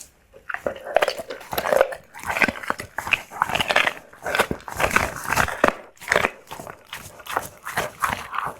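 A dog being fed, making quick, repeated short sounds one after another.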